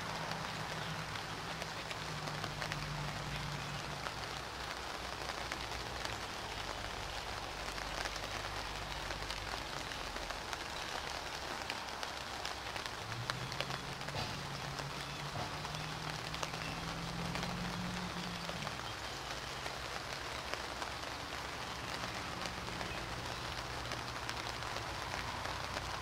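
Steady spring rain falling on leaves and ground, an even hiss dotted with many small drop ticks. A low hum sits faintly underneath, changing pitch about halfway through.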